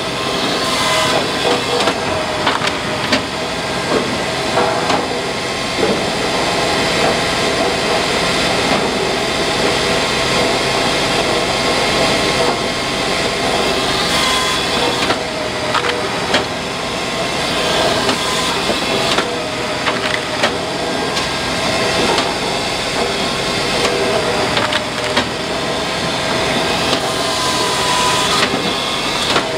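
Hakki Pilke 37 Easy firewood processor at work: a steady mechanical din as its saw cuts logs and the splitter drives them through the wedge, with many sharp knocks and clatter of split wood falling.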